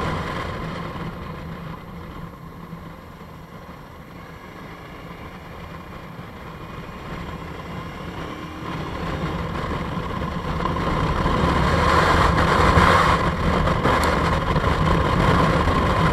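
Motorcycle engine running under way, mixed with wind rush on the on-board microphone. The sound eases to its quietest a few seconds in, then grows steadily louder over the next several seconds.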